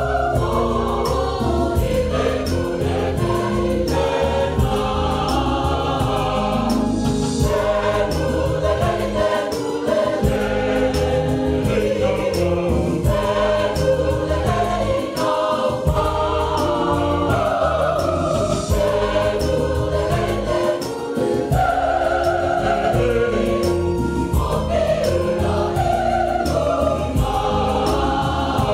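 Samoan Methodist church choir singing a hymn in several parts, accompanied by an electronic keyboard with a steady beat.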